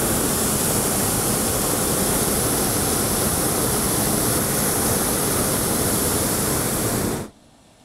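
Hot-air balloon's propane burner firing in one long blast, a loud steady rushing noise that shuts off suddenly about seven seconds in.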